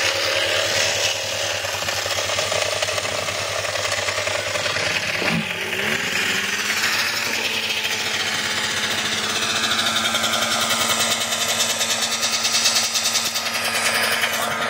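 Single-cylinder ATV engines idling with a fast, even exhaust chatter, one briefly blipped and settling back about five seconds in.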